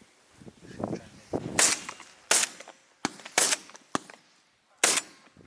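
Shotguns firing BBB goose loads from a blind: four sharp shots over about three seconds.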